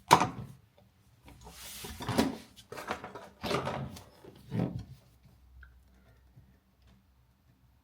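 Handling noises from work on an electrical outlet and its wiring. A sharp knock, then a scrape and a few rubbing knocks over about five seconds.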